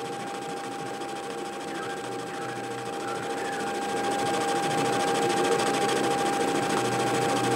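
Metal lathe running and a carbide-insert tool turning down a metal connecting-rod blank in an interrupted cut: a steady whine over the cutting noise, which grows louder about four seconds in.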